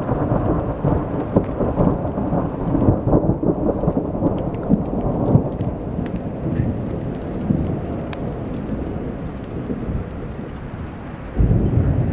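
Thunder rumbling over steady falling rain and sleet, loudest in the first half and slowly dying away, with a sudden louder low rush about eleven seconds in.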